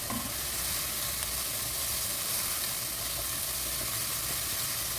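Chopped garlic, capsicum and herbs frying in hot oil in a pan, sizzling steadily.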